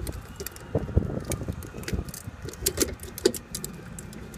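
Irregular metallic clicks and clinks of a steel bracket and hardware being handled and fitted, over a low steady rumble.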